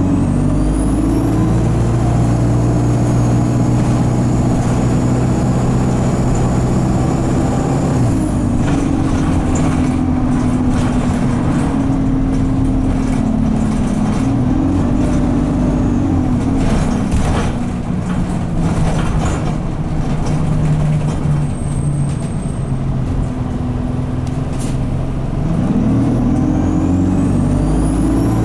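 Alexander Dennis Enviro200 bus engine pulling hard and holding high revs, with a high turbo squeal that climbs with the revs, then dropping away as the driver eases off. It pulls again twice more, the last time near the end. The revs stay high because the gearbox is stuck in 2nd/3rd and not changing up.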